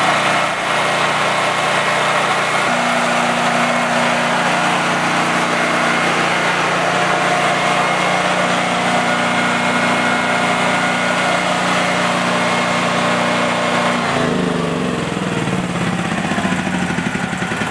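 Honda GX390 single-cylinder generator engine running steadily with no load at about 3600 rpm, its governed speed just raised by turning in the speed screw above the carburetor. About fourteen seconds in, the steady note breaks up and drops in pitch.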